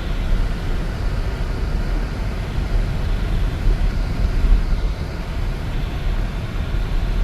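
Steady low rumble of an all-wheel-drive car driving on a snow-covered road, heard from inside the cabin.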